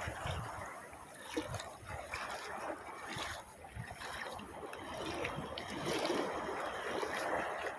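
Shallow seawater sloshing and lapping with small splashes, as of someone wading through light surf.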